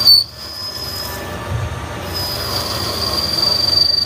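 Button tool on a Haas SL10 CNC lathe squealing as it rough-cuts the spinning part: a high, steady squeal that drops out for about a second a little past a second in, with a brief loud burst at the very start. The squeal comes from a feedrate that is too slow.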